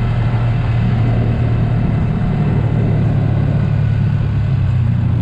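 A vehicle engine running steadily at an even speed, a constant low drone with no change in pitch.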